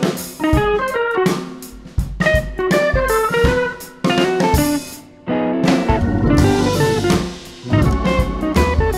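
Background music: a guitar playing plucked notes over a drum kit beat.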